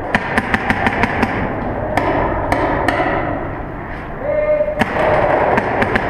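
Paintball markers firing in a large underground hall: a quick string of sharp pops, then single shots every half second or so.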